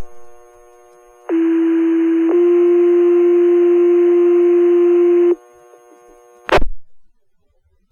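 Fire department two-tone paging tones over the radio: one steady tone for about a second, then a second tone held for about three seconds. This is the sequential tone pair that sets off the volunteer firefighters' pagers. Faint radio hiss lies around the tones, and a sharp click comes about a second after they end as the transmission drops.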